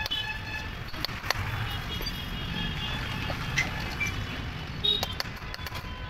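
Light hammer taps on a steel ball bearing being seated in a Piaggio Ape rear wheel hub on a steel block: a few sharp metallic knocks spread out, some followed by a brief high ringing.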